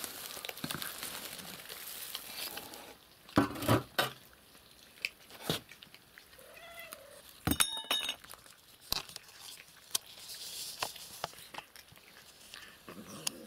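Cats eating crucian carp from plates: chewing and crunching fish, with scattered clicks and clinks of the plates on the floor.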